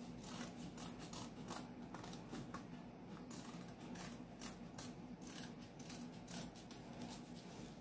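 Fabric scissors cutting through printed fabric: a faint, steady run of short snips as the blades close again and again along the outline.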